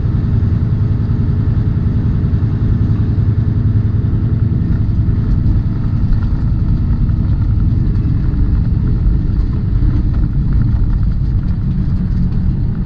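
Semi-truck engine and road noise heard inside the cab while driving, a steady low rumble with an even engine hum that doesn't change.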